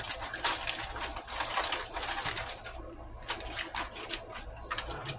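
Aluminium foil crinkling and crackling as a hand presses and crimps it down around the rim of a glass baking dish. The crackles come thick at first and thin out to a few scattered ones after about half way.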